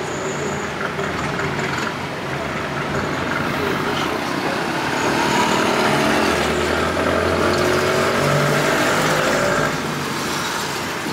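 Songthaew pickup-truck taxi under way, heard from its open rear bed: engine running and road noise. From about halfway, the engine note rises steadily as it accelerates, then drops suddenly near the end.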